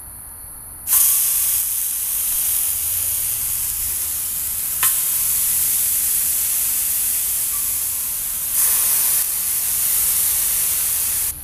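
Seasoned sand bass fillets sizzling loudly as they are laid onto the hot steel FireDisc. The sizzle starts suddenly about a second in and swells again near the end as another fillet goes down, with one sharp tick near the middle.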